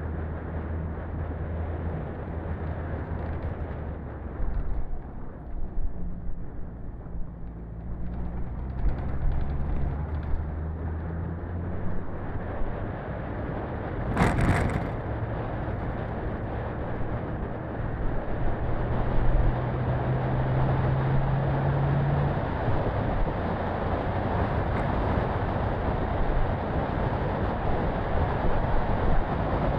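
Daihatsu Feroza 4x4 driving on a dirt and gravel road: its four-cylinder engine runs steadily under tyre noise on gravel and wind rush. There is a single sharp thump about halfway through, and the road noise grows louder toward the end.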